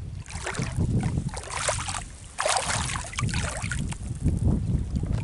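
Footsteps over loose shell and gravel at the edge of shallow water: an uneven series of crunching and sloshing steps with short pauses between them.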